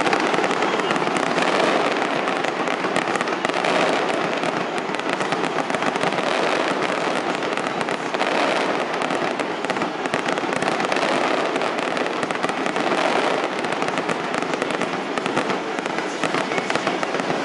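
Fireworks display: a dense, unbroken run of many overlapping pops and crackles from bursting aerial shells and fountains, with no pauses between them.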